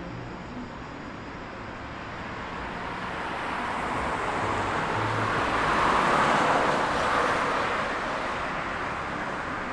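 Steady city road traffic with a car passing by: its tyre and engine noise swells to a peak about six seconds in, then fades.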